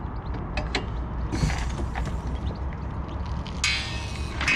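Metal hand tools clicking and scraping on the van's front brake parts as the caliper assembly goes back together. There are several short clicks and two longer scrapes, about a second and a half in and near the end, over a low steady hum.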